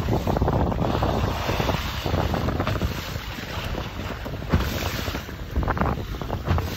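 Wind buffeting the microphone over choppy sea water splashing around a small boat, a continuous rushing noise heaviest in the low end with a few brief splashes.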